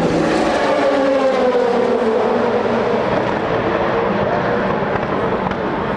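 Race car engine at high revs going past, its pitch falling steadily over the first few seconds as it moves away.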